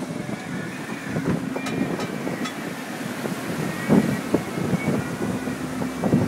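Storm wind buffeting the microphone on an open sailboat cockpit, with the rush of rough seas against the hull. The gusts swell, the strongest about four seconds in.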